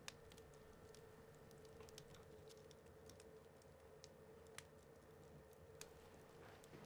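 Near silence: room tone with a faint steady hum and scattered faint clicks.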